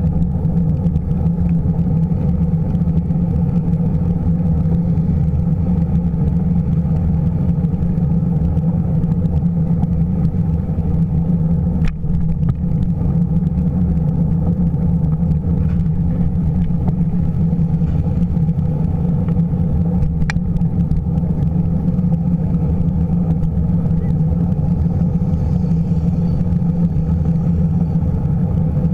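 Steady low rumble of wind and road vibration on a bicycle-mounted camera riding along a paved bike path, with a couple of faint clicks partway through.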